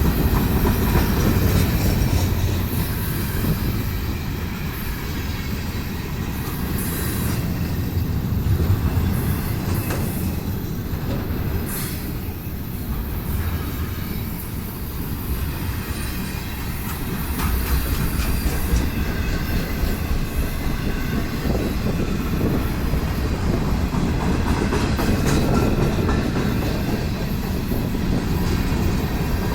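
Freight train rolling past: a steady, heavy rumble of wagons on the rails, with clacking over the rail joints and some wheel squeal.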